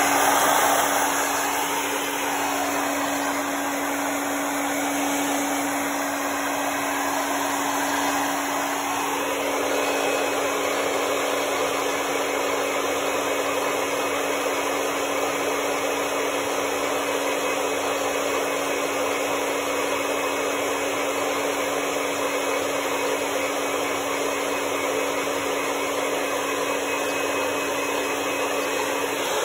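Handheld hair dryer running steadily, blowing air over a dog's coat. The rush of air has a constant motor hum beneath it and is slightly louder in the first second.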